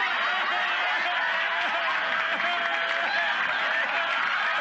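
Studio audience laughing and applauding steadily, with a woman's long, wavering wail of mock grief held over the crowd noise.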